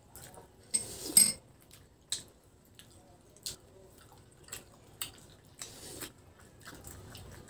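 Metal spoon and fork clinking and scraping against a plate while eating. A quick cluster of clinks comes about a second in, then single clinks every second or so.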